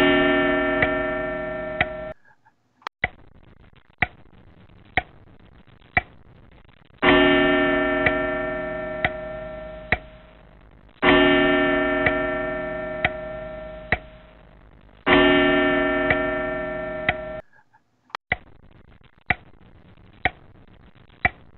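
A clock ticking steadily about once a second. A ringing, bell-like tone sounds over it four times, each time starting suddenly and fading away over a few seconds.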